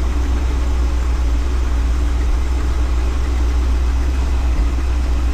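The 1984 Chevrolet Champion motorhome's engine running steadily, heard from inside the cab, as the motorhome creeps forward at low speed.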